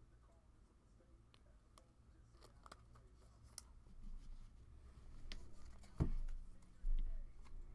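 Trading cards and packs being handled: scattered light clicks and scrapes, with a sharp thump about six seconds in and a dull, low thud about a second later.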